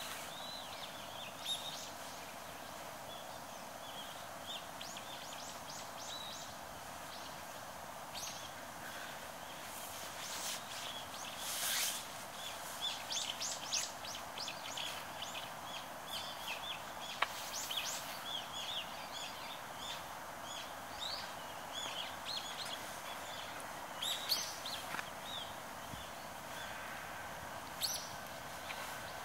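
Small birds chirping in quick repeated calls over a steady outdoor background hiss. Near the end a faint steady tone begins as a 521 series electric train approaches along the line.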